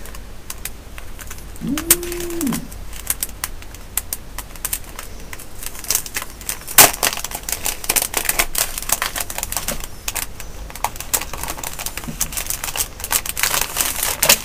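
Rapid, irregular clicking and crinkling as a Kindle e-reader and its plastic wrapping are handled and turned over. A short low hum sounds about two seconds in.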